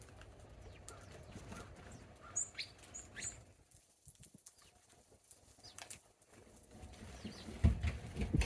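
Small songbirds at a feeding spot in the snow, giving a few short high chirps with wing flutters, and a louder low thump near the end.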